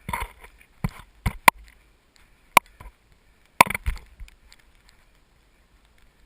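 Scuffing steps through deep snow with a series of sharp, irregular clicks and knocks, a few with a brief ring, bunched in the first four seconds and then quieter.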